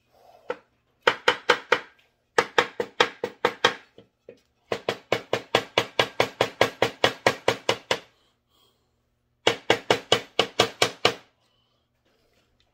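Sheet-metal muffler off a Stihl TS 350 Super cut-off saw being rapped against the workbench in four quick runs of knocks, about six or seven a second, shaking out the carbon that has clogged its outlet holes.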